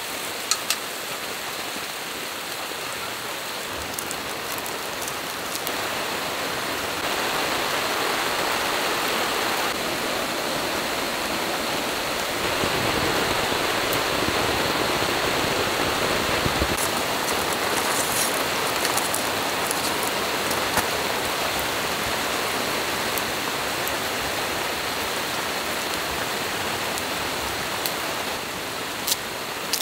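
Steady rain falling on and around a camping tarp, an even hiss that grows louder through the middle, with a few sharp drip taps near the start and end.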